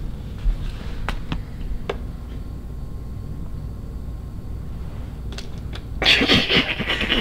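A plastic water bottle being handled, giving a few sharp crackling clicks over a low steady room rumble. A louder rush of noise comes in about six seconds in.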